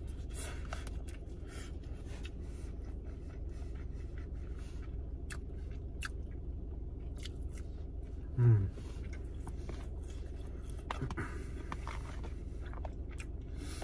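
Chewing and mouth sounds of a person eating Spam, fried eggs and rice, with small spoon clicks and scrapes against a plastic container. A short low vocal sound comes about eight and a half seconds in, over a steady low hum.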